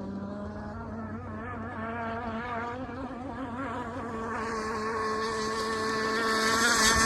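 Gas two-stroke engine of an RC hydroplane boat running at speed on the water. Its pitch holds steady and it grows steadily louder as the boat comes closer.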